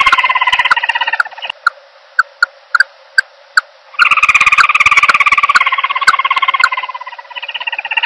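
Recorded call of the bird that trappers call 'ốc cao', played as a trapping lure: a fast, pulsing trill that breaks off a little after a second in, leaving a handful of sharp clicks, then starts again about four seconds in and dips near the end.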